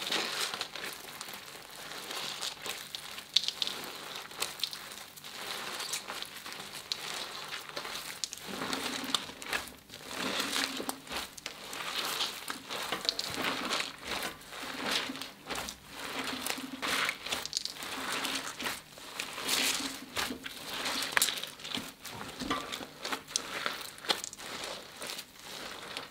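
Hands squeezing and kneading slime mixed with metallic foil confetti: sticky crackling and crinkling. From about eight seconds in, the squeezes come in a steady rhythm, roughly one a second.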